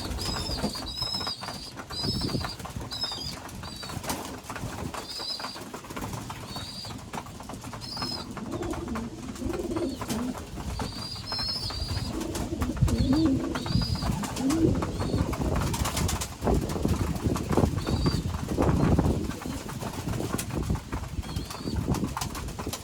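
Racing pigeons in a loft cooing, with repeated short high-pitched squeaky peeps, typical of young pigeons begging to be fed by their mothers.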